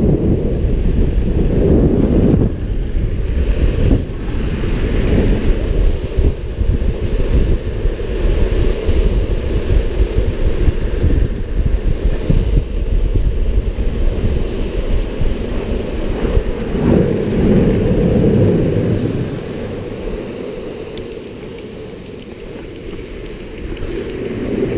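Wind rushing over the microphone of a ground-level action camera, together with the roll of longboard wheels on asphalt: a steady, loud rushing noise that eases off for a few seconds late on and then picks up again.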